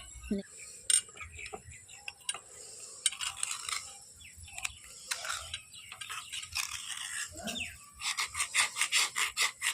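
Light clicks and rubbing as a bar is handled and scraped, then about two seconds from the end a fast, even run of scraping strokes, about five a second.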